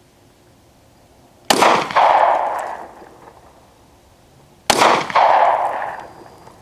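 Two gunshots about three seconds apart, each a sharp crack followed by about a second of noise dying away.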